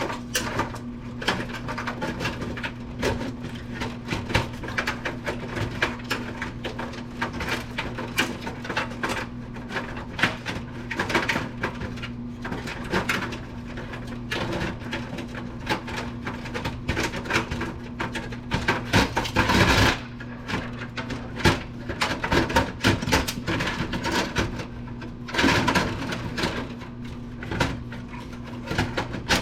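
Hands and tools working on the parts of a circa-2000 Apple computer being taken apart: a steady run of clicks, knocks and rattles of metal and plastic over a steady low hum. There are two longer scraping bursts, about two-thirds of the way through and again a few seconds later.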